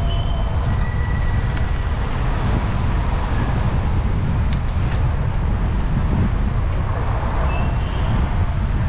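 Steady city street traffic noise heard from a moving bicycle: a continuous low rumble of passing cars and buses, with a few faint short high tones over it.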